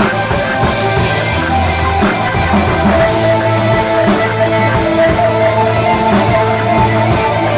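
Progressive rock band playing live, with electric guitar and drum kit over held bass notes and a steady beat.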